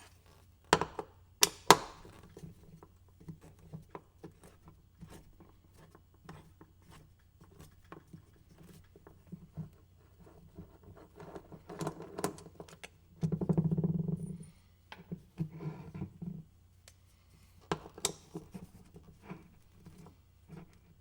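Scattered clicks, clinks and knocks of an Allen wrench and small metal parts (bolts and lock rings) being handled as a two-piece kart wheel is unbolted, with a few sharp knocks near the start and a rattling scrape of about a second in the middle.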